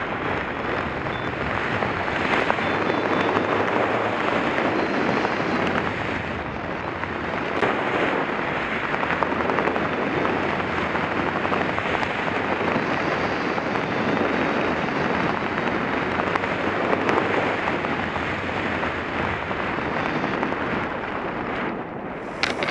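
Wind rushing over a helmet-mounted camera's microphone as a skydiver descends under an open parachute canopy, a steady noisy rush. Near the end it breaks off into rustling and scraping clicks as the jumper touches down in grass.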